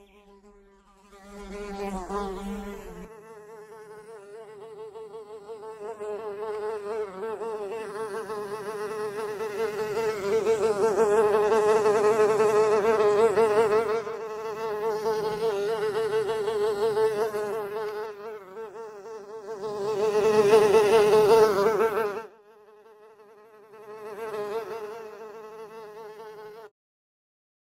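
Fly buzzing in flight, a wavering droning hum that swells and fades as if coming close and moving away. It breaks off briefly twice and stops near the end.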